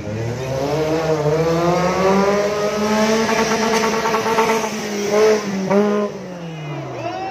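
Off-road racing buggy's engine revving hard as it accelerates, its pitch climbing over the first few seconds. Two short throttle blips come about five seconds in, then the revs fall away near the end.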